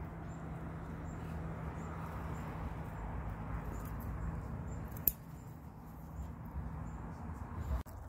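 A single sharp snip of scissors cutting through a broad bean pod stalk about five seconds in, over a low steady rumble on the microphone.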